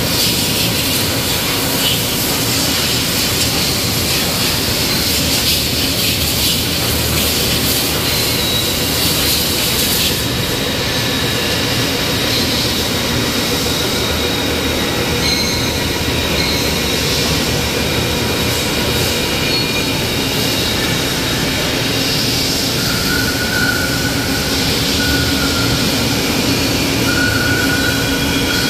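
Compressed-air blow gun hissing as machining chips are blown off a forged front-axle I-beam in a machining center, stopping about ten seconds in. Steady machine-shop noise carries on, with faint steady tones and a high whine that comes and goes near the end.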